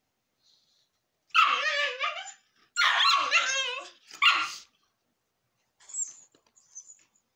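Small terrier barking in play during a tug-of-war over a toy: three loud bouts, each up to about a second long, with a wavering pitch, followed by fainter sounds near the end.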